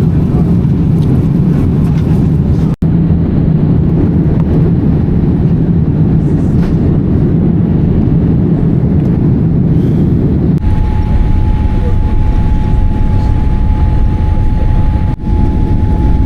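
Steady low rumble of a jet airliner heard from inside the cabin, in several short clips joined by abrupt cuts. A thin steady tone sits over the rumble in the last few seconds.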